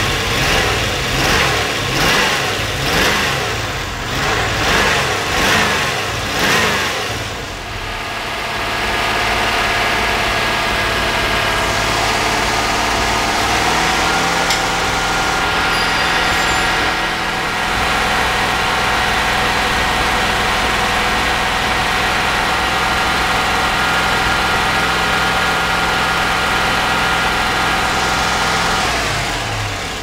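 1992 Corvette V8 engine revved by hand at the throttle: blipped about six times in quick succession, then held at a steady fast speed of around 3300 rpm, stepping up once midway and falling back near the end. It has freshly fitted aftermarket fuel injectors and still has a misfire, which the technician suspects is on the left bank.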